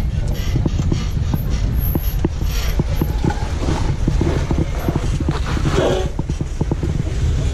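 Off-road 4x4 working slowly over rocky ground: a steady low engine rumble with a rapid, irregular run of knocks and creaks from the suspension, body and rocks under the tyres.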